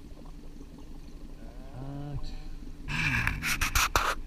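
A hooked fish thrashing and splashing at the surface beside the boat for about a second, starting about three seconds in, over the steady low hum of the boat's motor.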